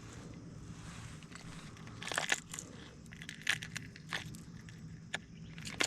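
Fishing tackle being handled while a lure is changed: irregular plastic and metal clicks, rattles and crinkles, starting about two seconds in over a faint steady hiss.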